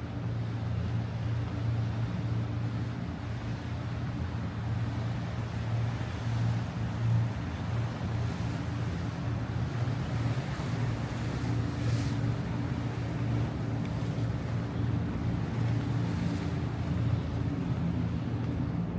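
A steady low engine hum that holds one pitch throughout, with a few faint ticks over it in the second half.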